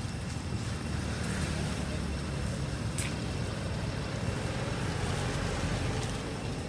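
Steady low rumble of outdoor background noise, with one short sharp click about three seconds in.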